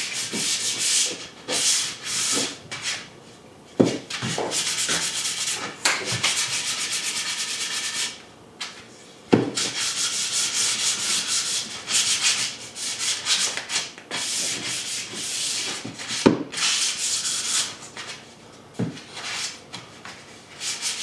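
Sandpaper rubbed by hand on the cut corners of plywood, smoothing them against splinters. It goes in quick back-and-forth strokes in several long runs, with brief pauses and a few sharp knocks of the wood.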